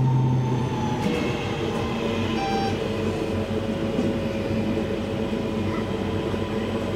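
Interior running noise of a Class 323 electric multiple unit: a steady rumble with motor hum as the train draws alongside a station platform. A strong low hum drops away just under a second in, leaving a steadier, higher hum over the rumble.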